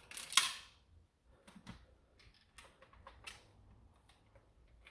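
Small plastic clicks and scrapes from handling a toy blaster's battery cover and its screw, with one louder scrape about half a second in.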